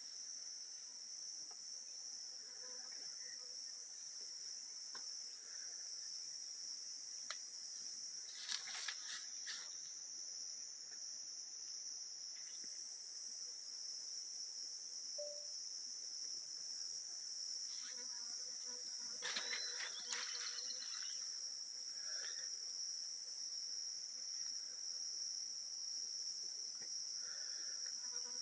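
Crickets singing a steady, continuous high-pitched trill at two pitches. The higher trill drops out about 9 seconds in and returns about 12 seconds in. A few brief knocks come around 9 and 20 seconds in.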